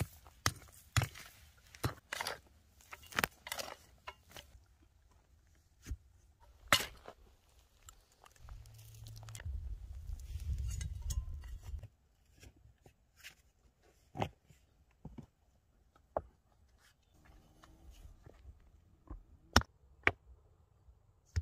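Loose flat stones being picked up, knocked together and set down on a dry-stone wall, in scattered sharp clacks, with crunching of dry grass and gravel underfoot. A low rumble runs for a few seconds in the middle.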